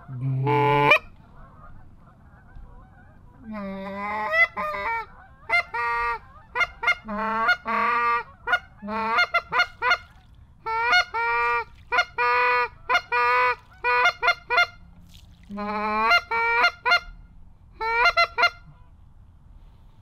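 A flock of Canada geese honking as they take off and fly, many short honks overlapping in clusters. One loud honk comes at the very start, then a lull, and the honking picks up again about three and a half seconds in.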